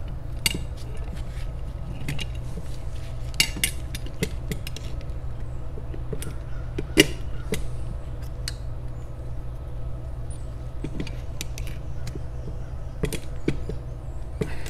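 Scattered small metallic clicks and taps of needle-nose pliers and a screwdriver working the brass tubes out of a Rochester Quadrajet carburetor's aluminum air horn, over a steady low hum.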